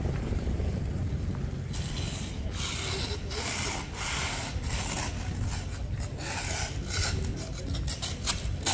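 Irregular, repeated rasping or scraping strokes over a steady low rumble, starting about two seconds in and coming faster toward the end.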